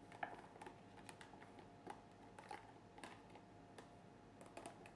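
Near silence with a few faint, scattered light clicks and taps.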